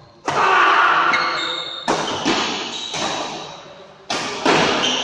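Badminton rally in a large hall: a jump smash hits the shuttlecock about a quarter second in, then several more sharp racket strikes and footfalls, each ringing on in the hall, with short high shoe squeaks on the court between them.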